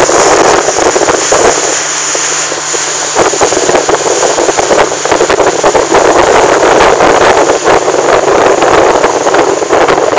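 Motorboat under way at speed, its Honda 150 four-stroke outboard running over the rush of water from the hull and wake, with heavy wind buffeting the microphone. The wind eases briefly about two seconds in, letting the engine's low hum through.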